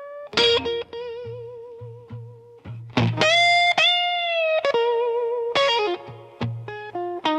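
Slow blues electric guitar solo with light distortion: single sustained notes with wide vibrato and string bends, over a soft bass line.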